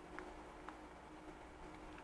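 Two faint small clicks from handling a cycle computer's plastic battery cap while it is being refitted, over a faint steady hum.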